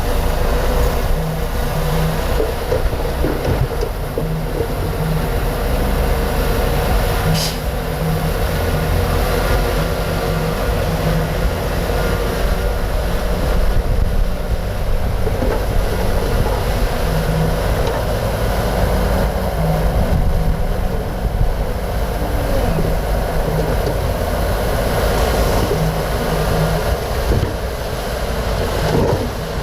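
Komatsu D58P bulldozer's diesel engine running steadily under load as the dozer works, pushing mud and soil.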